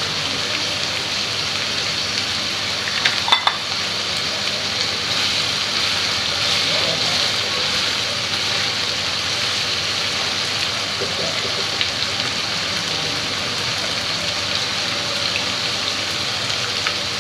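Egg frying in hot oil in a pan with vegetables and spices, a steady sizzle, with a few short knocks about three seconds in.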